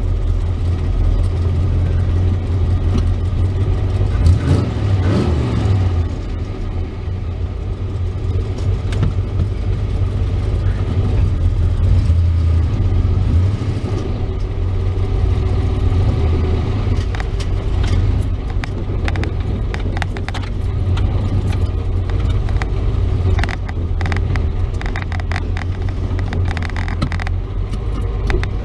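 Chevrolet S-10's carbureted engine running, a steady low drone with the pitch briefly rising and falling a few seconds in. Scattered light clicks come through in the second half.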